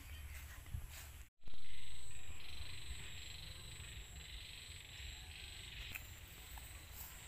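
Outdoor chorus of insects and frogs: a steady high buzzing that cuts out briefly about a second in and ends around six seconds in.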